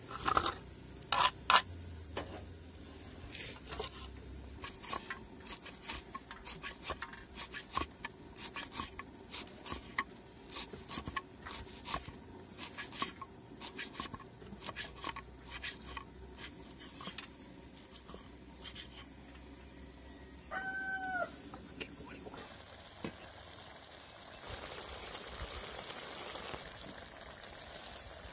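A knife chopping fresh herbs on a wooden board, quick irregular chops for about twenty seconds. A chicken calls once, briefly, about two-thirds of the way in. Near the end there is a few seconds of steady hiss, like food frying in a pot.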